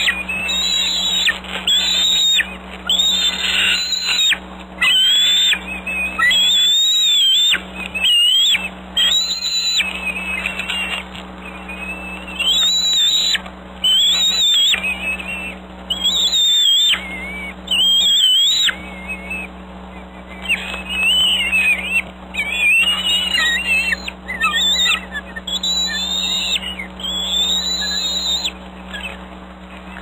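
Juvenile bald eagles giving high, thin whistling cries over and over, about one every second or two: food-begging calls at a freshly delivered meal. A steady low electrical hum runs underneath.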